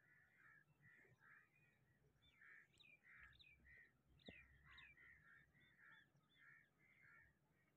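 Faint distant bird calls: short calls repeating about twice a second, with brief higher chirps mixed in from about two to five seconds in.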